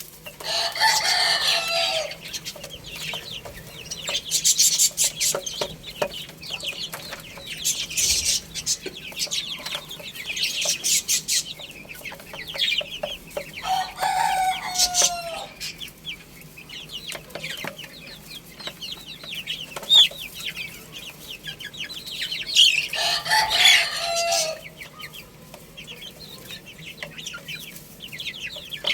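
Chickens clucking and calling, with three longer drawn-out calls (one near the start, one about halfway, one toward the end) among many short, high chirps.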